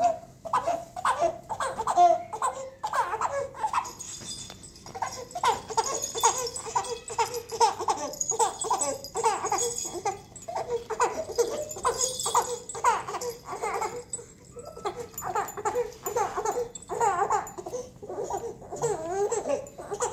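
A baby laughing and babbling in many short, high-pitched bursts.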